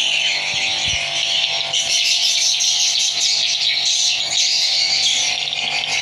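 Dense, continuous high twittering of swiftlets filling the swiftlet house, with a faint steady low hum beneath.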